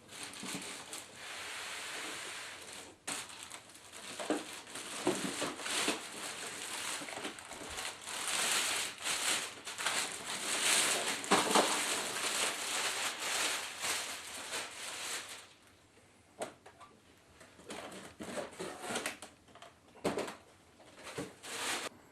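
Plastic packaging crinkling and rustling as it is handled and pulled off. The crinkling is dense for most of the stretch, then thins to scattered rustles and clicks near the end.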